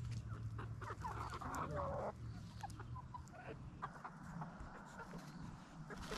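Backyard chickens clucking, with short calls scattered throughout and a busier burst of calls about a second in.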